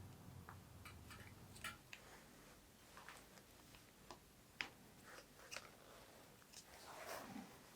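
Faint scattered clicks and light metallic taps from small bike parts and tools being handled during assembly, with a short scrape near the end.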